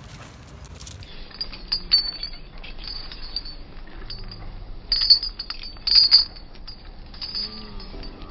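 Iron chains on a walking elephant's legs and neck clinking and clanking with its steps, with the sharpest clanks about five and six seconds in.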